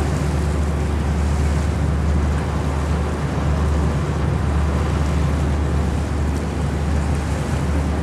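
River boat's engine running steadily with a deep hum, under the rush of water and wind buffeting the microphone.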